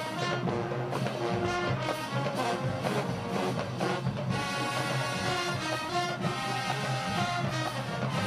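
College marching band's brass section playing a loud tune in held notes that change about every half second.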